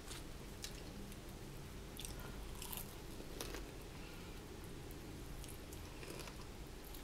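Crispy fried chicken wing coated in nacho cheese sauce being bitten and chewed close to the microphone, with several short crisp crunches.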